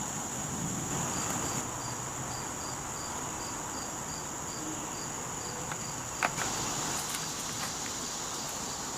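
Summer insect chorus: a steady high-pitched drone, with a separate insect chirping about three times a second over most of it. A single sharp click comes about six seconds in.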